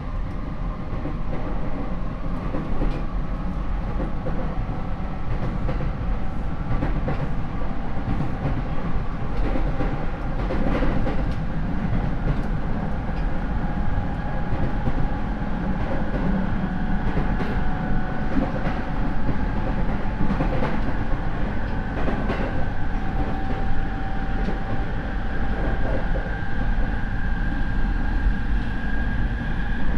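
Interior running sound of a Rinkai Line 70-000 series electric train refurbished with a Mitsubishi IGBT VVVF inverter and MT73 traction motors. The motor whine climbs slowly in pitch as the train gains speed, over rail rumble and occasional wheel clicks at rail joints. This car is known for unusually loud motor noise.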